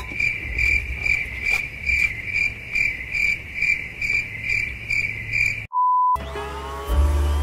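Crickets-chirping sound effect, the stock 'awkward silence' gag: a high chirp pulsing a little over twice a second. It cuts off suddenly near the end for a short, steady test-tone beep.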